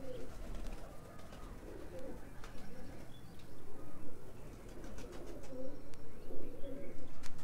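Domestic pigeons cooing, low and repeated, with a few light clicks and rustles of a pigeon being handled close to the microphone.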